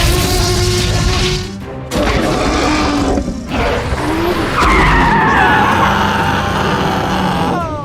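Vehicle engine sound effects mixed with background music, with a few abrupt cuts.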